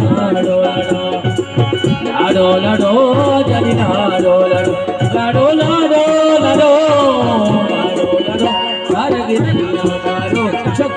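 Live Balochi folk song: a man singing long, bending phrases over sustained instrumental tones, with a steady hand-drum beat and a rattling percussion.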